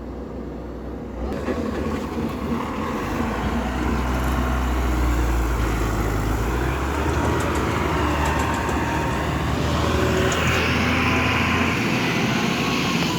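Heavy diesel engine of earth-moving machinery running steadily, growing louder about a second in.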